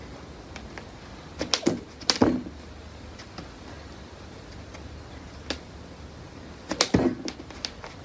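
Jump rope swishing through the air and slapping a wet mat in a few irregular, sharp strokes: two close together about a second and a half in, a single one midway, and a quick cluster near the end.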